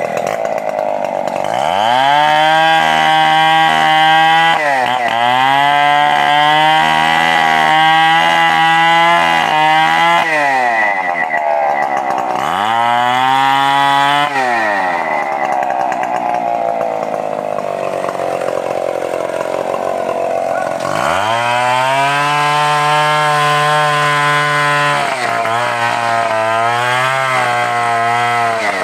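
Stihl 070 two-stroke chainsaw revved up to full throttle three times, dropping back to idle in between. During the long high-speed runs its pitch dips and wavers, as when the chain is loaded cutting into a coconut trunk.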